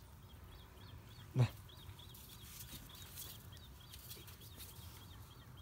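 Faint, rapid high chirping from a small animal, about four chirps a second, with one short low sound about a second and a half in.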